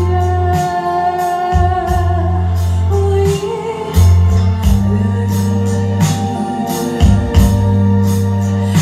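A woman singing in Spanish into a handheld microphone over amplified backing music, with held notes above a steady bass line and regular percussive beats.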